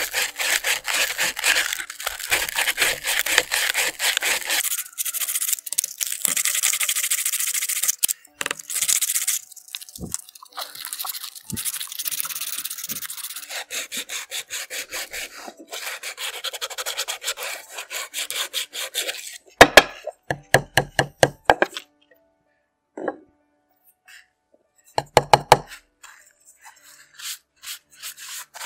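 Sandpaper rasping on a dry coconut shell as it is hand-sanded: dense continuous scratching at first, then quicker back-and-forth strokes a few times a second. About two-thirds through comes a run of loud, sharp scraping strokes, with a few more near the end.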